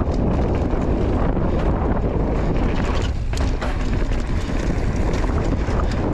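Wind rushing over the camera microphone as a mountain bike rides a dirt trail, with the tyres and frame rattling over bumps and a sharp knock a little past halfway.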